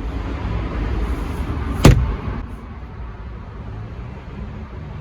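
A single loud slam of a panel in an SUV's cargo area, such as the storage bin lid or a folding seatback dropping shut, about two seconds in, over a low rumble.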